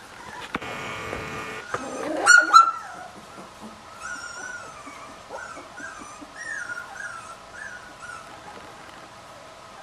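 Three-week-old Lagotto Romagnolo puppy whimpering. A loud short squeal comes about two seconds in, then a string of thin, wavering whines over the next few seconds.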